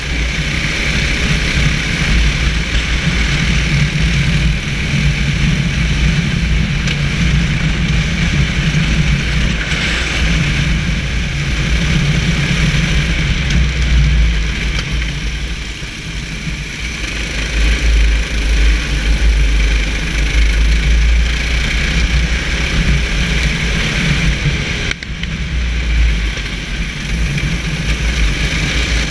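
Racing kart engine running under throttle, heard from a camera mounted on the kart, with a deep rumble underneath. The sound dips briefly about halfway through, then picks up again.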